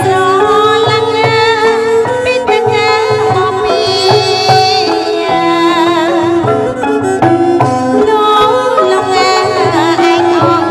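Khmer Lakhaon Bassac ensemble music: a wavering, sustained melody over a steady drum beat.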